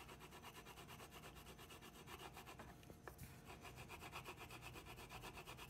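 Wax crayon rubbing across a sheet of paper in quick, even back-and-forth colouring strokes. The sound is a faint, rhythmic scrubbing.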